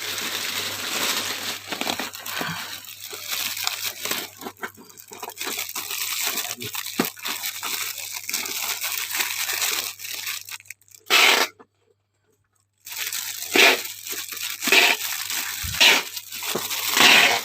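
Packaging being torn and crinkled by hand during unboxing: continuous rustling and crackling with many small irregular crackles. It drops out completely for about a second near the middle, then comes back as louder, separate tearing strokes.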